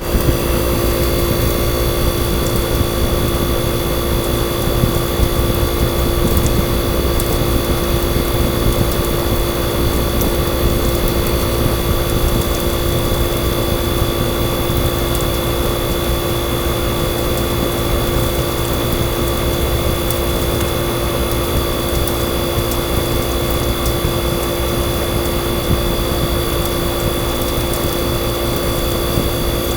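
Tecumseh AJA 7490ZXD hermetic refrigeration compressor running steadily, a constant hum with several fixed whining tones over a low rumble.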